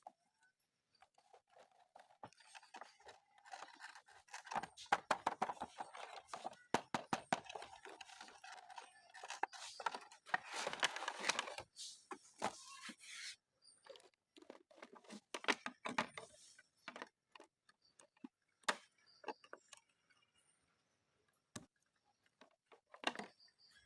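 Toy packaging being handled and opened by hand: rustling plastic, scraping and many small clicks, busiest and loudest about ten to thirteen seconds in, then only a few clicks.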